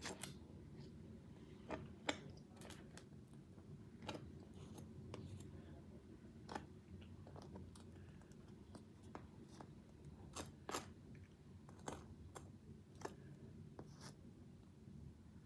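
Faint, scattered clicks and light taps, about a dozen at irregular intervals, over a low steady room hum: small handling noises of utensils and food.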